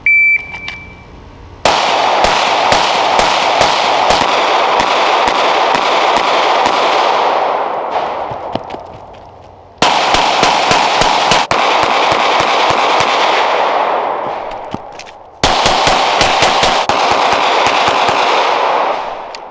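A shot-timer beep, then three strings of rapid 9mm pistol fire from a ZEV Technologies OZ9 Elite Standard pistol: a bill drill run at 15, 10 and 7 yards. Each string lasts a couple of seconds and dies away slowly.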